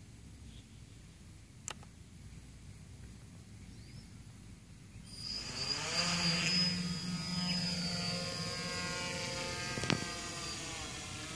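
Quadcopter's electric motors and propellers spin up about five seconds in, rising quickly in pitch, then run with a steady whine as it lifts off under autonomous control. Before that it is fairly quiet, with a single click near the two-second mark.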